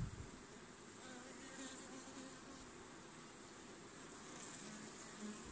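Honey bees buzzing faintly around the hive, a low hum that wavers in pitch, with a short low bump at the very start.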